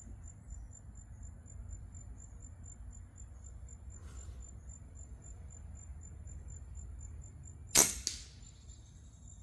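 A single sharp shot from the shooter's gun near the end, over a steady, evenly pulsing insect chirr. A fainter click comes about four seconds in.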